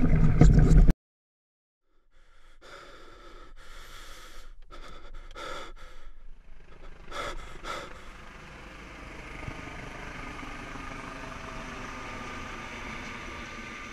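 A loud sound cuts off abruptly about a second in. After a second of silence come a series of heavy, gasping breaths. Then a steady distant drone from a helicopter overhead slowly fades.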